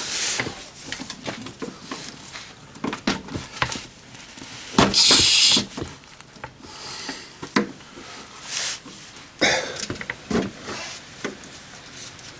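Oil filter wrench working on a very tight oil filter on a Subaru EJ20 engine: irregular metal clicks and knocks with a few louder noisy bursts, the biggest about five seconds in.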